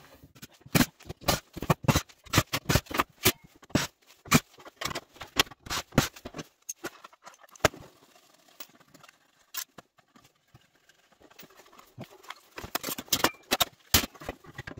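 Sheet-metal case of a TV/FM modulator being handled and taken apart on a workbench: irregular sharp metal clicks and clanks. They thin out about halfway through and pick up again near the end.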